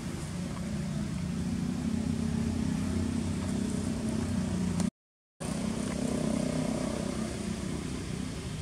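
A steady low engine-like drone, as of a motor vehicle running off-picture, cut by a sudden half-second gap of total silence about five seconds in.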